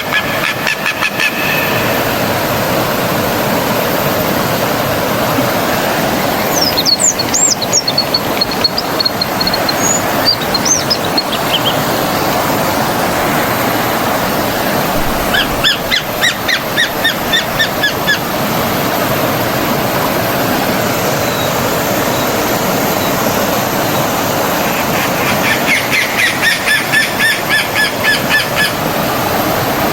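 Forest stream flowing steadily, with wild birds calling over it: a few whistled, gliding notes about a quarter of the way in, and fast runs of repeated chirps in the middle and again near the end.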